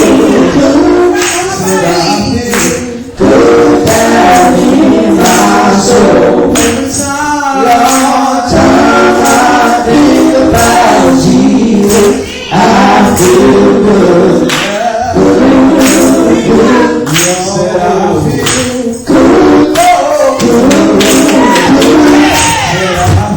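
Live gospel singing with a tambourine shaken and struck along, loud.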